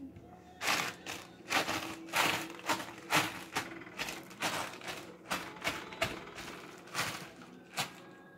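Bag of chips being stomped on underfoot to crush them into crumbs: a run of crackling crunches, about two a second, ending shortly before the end.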